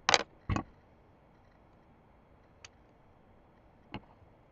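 Plastic Lego pieces clicking and knocking as they are handled and set down. Two sharp clicks come right at the start, then two fainter ones later.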